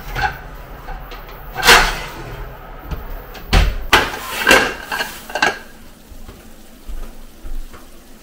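Kitchen clatter of a metal oven tray loaded with glass food containers: a sharp knock about a second and a half in, then a run of knocks and clinks between about three and a half and five and a half seconds in as the tray and glass dishes are handled and set down.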